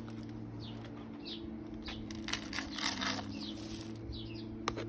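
Garden birds giving short, high, falling chirps about once a second, with a brief flutter of wings near the middle, over a steady low hum.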